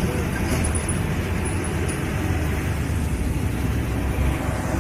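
Diesel engine of a loaded truck-and-trailer running under load as it climbs a steep bend, a deep steady rumble mixed with passing road traffic.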